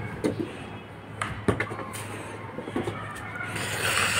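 A few light knocks of a football being kicked on a concrete floor, over a faint steady low hum.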